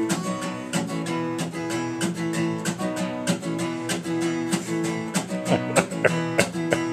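Acoustic guitar strummed in a steady, even rhythm, chords ringing between strokes: the instrumental intro of a song.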